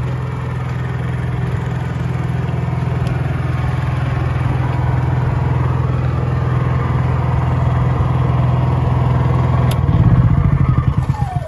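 Honda EU3000iS inverter generator, a single-cylinder four-stroke, running steadily. It is switched off about ten seconds in: the engine stutters briefly, then winds down with a falling whine.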